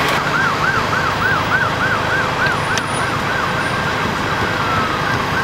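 Emergency vehicle siren in a fast yelp, rising and falling about four times a second, then changing to one long falling tone about three and a half seconds in, over a steady low engine rumble.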